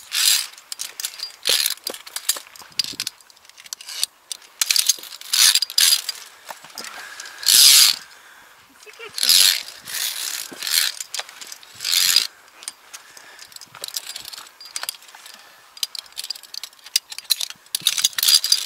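Via ferrata lanyard carabiners clicking and scraping along a steel safety cable during a climb: an irregular run of sharp metal clicks and short scrapes.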